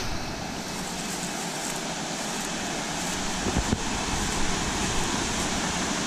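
Water rushing steadily down a rocky stream cascade at the head of a waterfall, slowly growing a little louder. A couple of brief knocks about three and a half seconds in.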